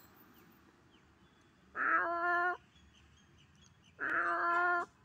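Two drawn-out animal cries, each under a second long and matching one another, about two seconds in and again about four seconds in.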